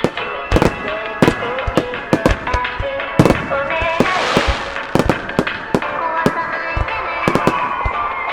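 Starmine fireworks barrage: a quick, uneven run of sharp aerial shell bursts, well over a dozen bangs, with a hissing rush about four seconds in. Music plays underneath.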